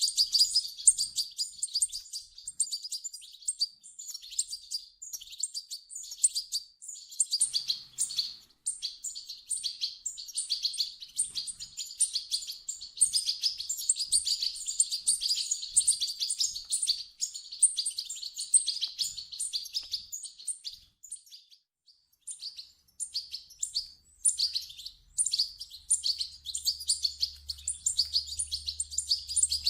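European goldfinch chicks calling: a rapid, dense stream of high-pitched chirps, with a brief pause about two-thirds of the way through.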